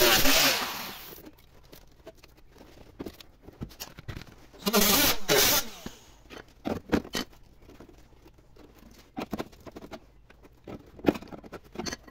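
Angle grinder cutting into the rusted sheet steel of a car's rear wheel arch, spinning down about a second in, with a second short burst of cutting around five seconds in. Scattered scrapes and clicks of loose rusty metal follow.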